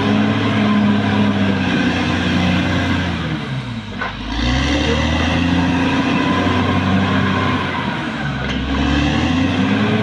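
Caterpillar D6R XL bulldozer's diesel engine running hard. Its pitch falls about three seconds in and the sound dips briefly, then it revs back up; a smaller dip comes near the end.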